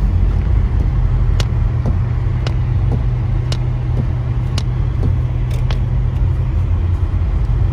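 Car driving, heard from inside the cabin: a steady low engine and tyre rumble, with a faint sharp click about once a second.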